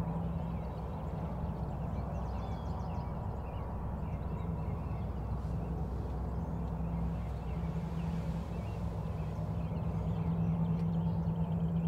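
Outdoor field ambience: a steady low rumble with a constant hum, and small birds chirping faintly.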